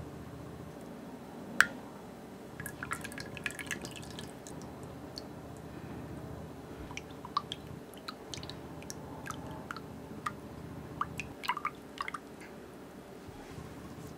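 Milk with dissolved gelatin being stirred with a silicone spatula in a glass saucepan: liquid sloshing and dripping with scattered light clicks of the spatula against the glass. There is one sharp clink about a second and a half in.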